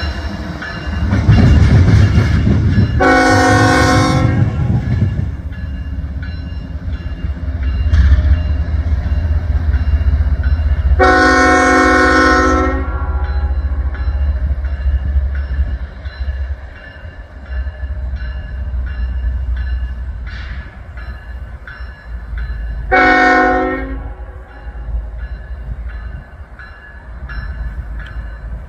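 Diesel freight locomotive sounding its air horn: two long blasts and a shorter third, each a chord of several notes, over the low rumble of the moving train, which eases about halfway through.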